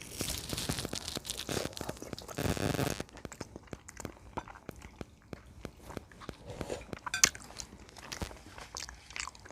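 Close-miked crunching and tearing as a piece of turkey wing is bitten into, loudest and densest for about the first three seconds. After that it gives way to quieter, scattered clicks of chewing.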